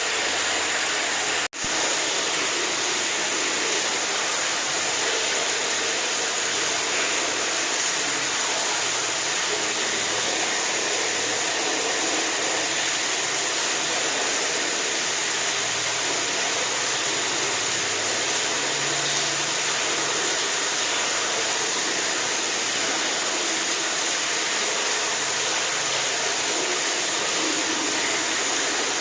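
Steady rushing water, an even hiss with no rhythm or change, broken by a very brief dropout about one and a half seconds in.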